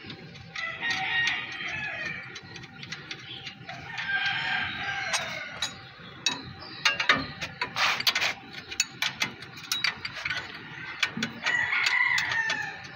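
A rooster crowing three times, over scattered sharp metallic clicks and taps from hand tools at work on the vehicle.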